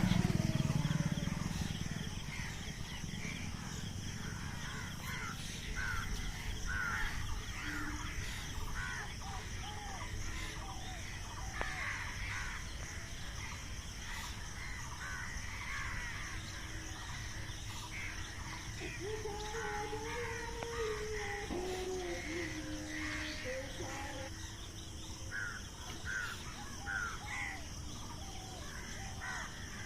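Many small birds chirping with short, repeated calls, over a steady outdoor background. A low engine rumble fades out in the first second or two, and a longer, lower wavering call is heard past the middle.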